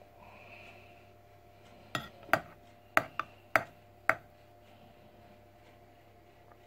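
Metal spoon stirring thick instant custard in a glass measuring jug, clinking against the glass in a handful of short, sharp taps between about two and four seconds in.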